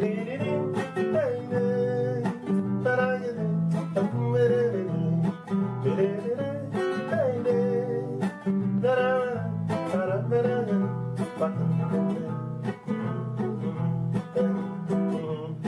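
Music: a strummed acoustic guitar with a melodic lead line gliding above it, an instrumental break in the song with no words sung.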